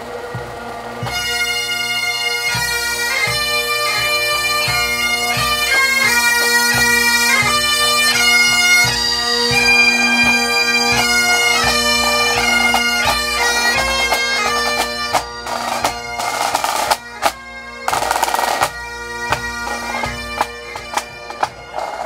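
Highland pipe band of bagpipes and snare drums playing a march tune while passing close by: steady drones under the chanter melody, with drum beats. The band gets louder about a second in.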